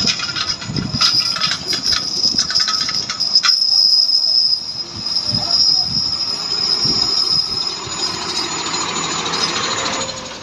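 A box truck creeping past at close range, its running gear giving a steady high-pitched squeal that stops near the end. A quick run of rattling clicks comes in the first few seconds.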